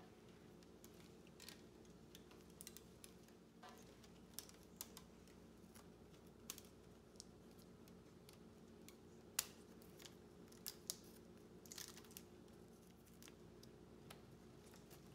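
A rubber band being stretched and wound around a tight bundle of flower stems: scattered soft snaps and clicks of the band and stems, the loudest about nine seconds in, over a faint steady hum.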